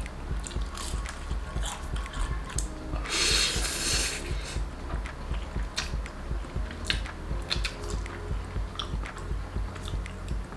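Close-up eating sounds from a mouth eating spicy noodles and fried tofu: repeated wet clicks of chewing and chopsticks, with a loud hissing slurp about three seconds in. Quiet background music runs underneath.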